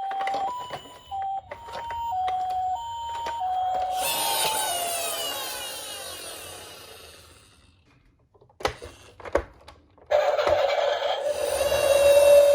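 Toy emergency-vehicle siren sounds: an electronic two-tone hi-lo siren alternating about twice a second, which drops in pitch and fades out about four seconds in. After a few sharp clicks, a louder steady siren tone comes in about ten seconds in.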